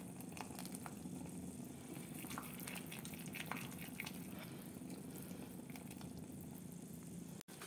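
Jaggery syrup (jaggery melted with ghee and water) quietly bubbling as it cooks in a non-stick pan, with scattered small pops of bursting bubbles.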